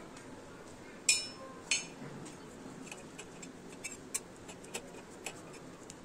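Light clinks and ticks on a tawa as chillies are dry-roasted on low flame: two sharper clinks about a second in, then scattered small ticks over a faint steady background.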